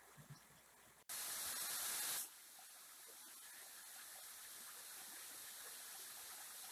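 Waterfall rushing, an even hiss of falling water. It cuts in suddenly about a second in, loudest for about a second, then settles to a steady, lower rush.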